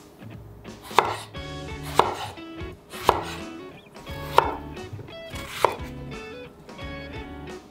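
A Tojiro Pro chef's knife slicing an eggplant into rounds and striking a bamboo cutting board: five sharp chops, about one a second, over soft guitar music.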